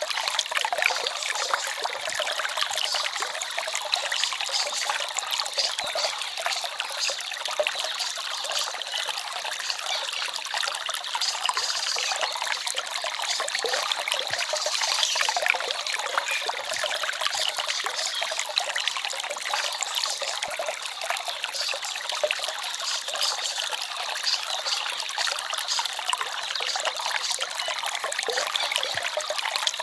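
Small forest stream babbling and trickling steadily.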